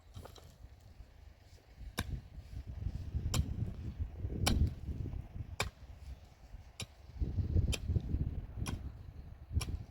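Sharp knocks, roughly one a second, over a rough low rumble that swells about three seconds in and again near the end.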